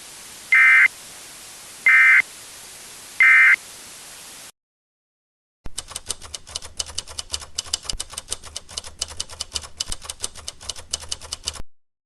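EAS end-of-message signal: three short bursts of warbling data tones about 1.3 seconds apart, over a steady hiss that cuts off. After a second of silence comes a fast, irregular clicking clatter, like a typewriter, lasting about six seconds.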